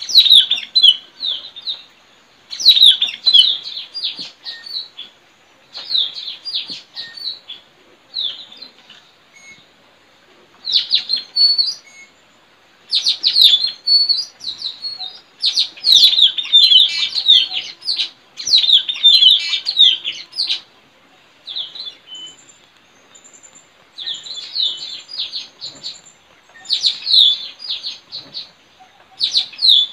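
Blue-rumped parrots (puling, tanau) calling: bursts of sharp, high chirping notes, each bunch lasting one to two seconds, separated by short pauses.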